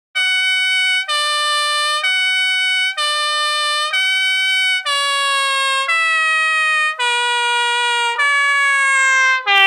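Two-tone ambulance siren sound effect, switching between a high and a low note about once a second. From about halfway through, both notes slide steadily lower in pitch, and the siren gets a little louder near the end.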